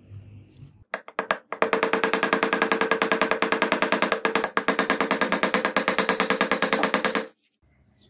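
Rapid, even metallic tapping from a tool working a small brass key on a steel block. It starts with a few separate strikes about a second in, runs as a fast steady patter, and stops abruptly near the end.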